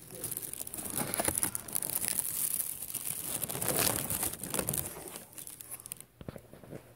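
Clear plastic bag full of Christmas baubles crinkling and rustling as the baubles are rummaged and shifted about, with irregular crackles. It eases off about six seconds in.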